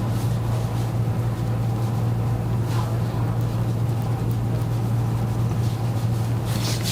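A small electric motor running with a steady low hum, such as a handheld massage tool.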